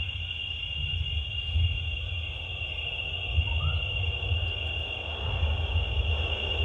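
Ambient stage soundscape: a steady high whine like insects chirring, over a low, wavering rumble. A single short rising chirp comes about halfway through.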